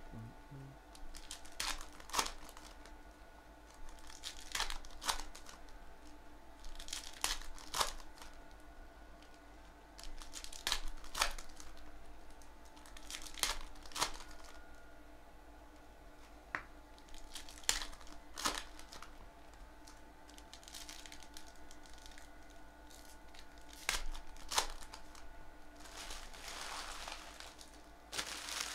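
Shiny foil trading-card pack wrappers being torn open and crinkled by hand: short sharp rips every second or two, with a longer crinkle near the end. A faint steady hum sits underneath.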